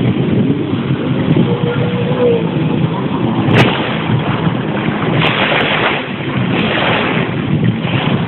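Sea-Doo 155 hp jet ski running under way, its engine mixed with rushing water, spray and wind on the microphone. There is a sharp knock about three and a half seconds in, and the hiss of spray surges twice in the second half.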